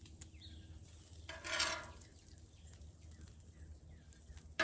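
Bacon strips laid onto a sandwich on a flat-top griddle: a light click near the start and a brief hiss about a second and a half in, over faint steady background hum.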